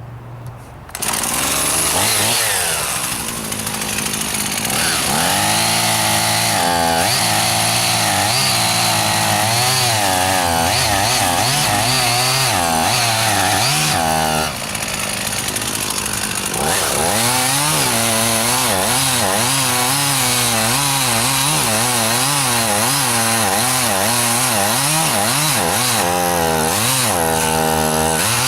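Chainsaw running at full throttle under load, cutting into the trunk of a dying, rot-hollowed juniper; its pitch wavers up and down as the chain works through the wood. About halfway through it eases off briefly, then comes back up to speed and carries on cutting.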